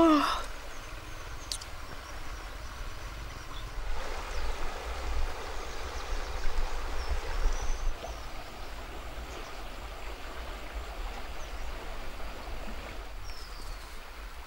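Steady rushing of a flowing river, with a low rumble that swells for a few seconds partway through. A person's yawn ends right at the start.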